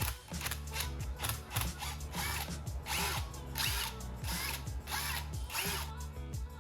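Ratchet wrench clicking in a series of short strokes over background music with a steady bass line.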